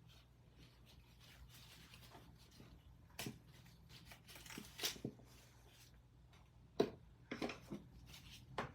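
Quiet rustling and a few light knocks as a MacBook Air box and its packaging are handled and opened, with a sharper click about seven seconds in.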